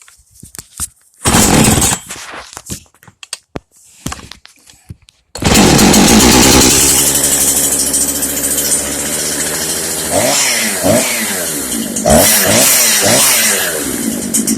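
Husqvarna 350 two-stroke chainsaw being started: a short loud burst about a second in, then the engine catches about five seconds in and runs loud at high speed. It is revved up and down several times around ten seconds in, then settles lower near the end.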